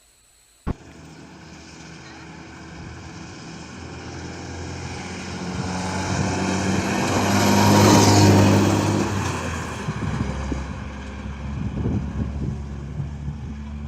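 A vehicle's engine starts abruptly, then runs with a steady hum that grows louder to a peak about eight seconds in and fades again, like a vehicle passing close by.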